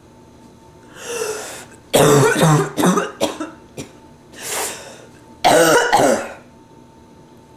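A woman with bronchitis coughing in two fits: a breath drawn in, then a run of three loud coughs about two seconds in, another breath, and a second burst of coughing near the end.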